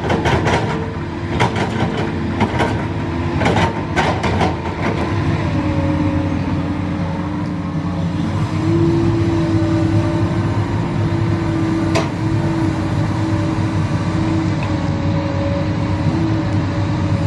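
Komatsu PC200 hydraulic excavator digging soil, its diesel engine running steadily under load with a steady hum. A string of sharp knocks comes in the first few seconds and one more about two-thirds of the way through.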